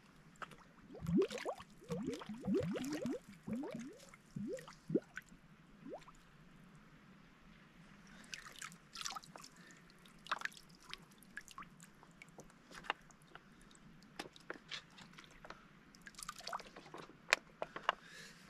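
A soft plastic water flask held under the water fills with a quick run of gurgling glugs over the first few seconds. After that come faint crinkles and clicks as the flask and its squeeze filter are handled and squeezed.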